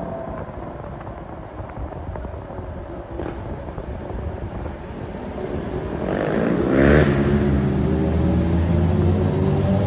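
Road traffic noise from a moving taxi. About six seconds in, an engine revs up, rising in pitch and getting louder, then runs on steadily.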